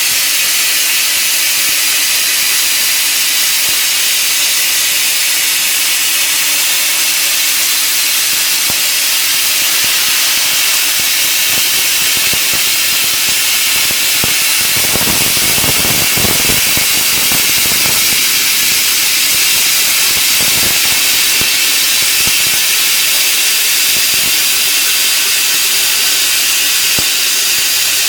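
50 kW fiber laser cutting machine cutting metal: a loud, steady hiss from the high-pressure assist-gas jet at the cutting head. About halfway through, a louder, lower rushing noise rises for a couple of seconds, then settles back to the hiss.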